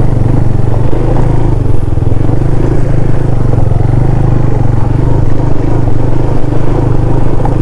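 KTM Duke 390's single-cylinder engine running steadily at an even cruising speed on the move, with no revving or gear changes.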